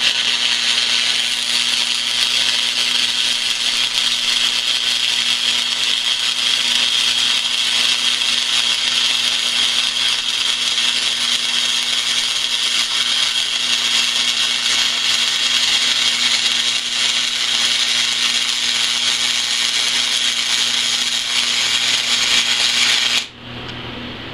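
Flux-cored arc welding with .035 NR-211 self-shielded wire on a 240 V wire-feed welder, laying a root pass in a beveled steel V-groove over a backing strip. The arc burns steadily for about 23 seconds, then cuts off suddenly near the end.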